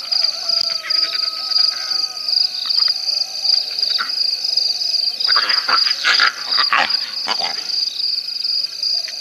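Night chorus of frogs and insects: a steady, fast-pulsing high trill with a wavering lower call beneath it. About five seconds in, a cluster of louder, rough, scuffing noises lasts for two or three seconds.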